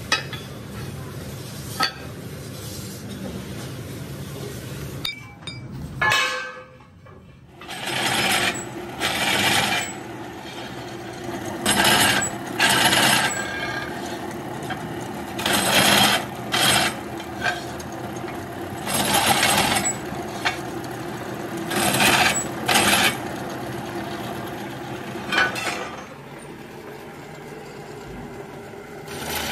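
Drill press running with a twist bit fed again and again into a steel wheel centre disc: about a dozen short, loud bursts of cutting noise from about eight seconds in, over a steady motor hum.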